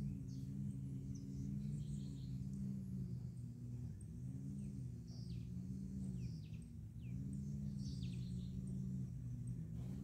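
Birds calling overhead: scattered short, high chirps, many sliding downward in pitch. Under them runs a louder low droning hum of several tones that sags and recovers in pitch every couple of seconds.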